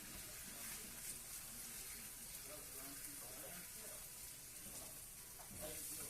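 Pan sauce of milk, butter and vegetables sizzling faintly with a steady hiss as it cooks.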